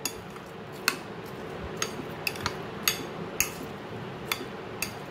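Metal spoon stirring chopped fruit and chocolate sauce in a glass bowl, clinking sharply against the glass at irregular intervals, about nine times.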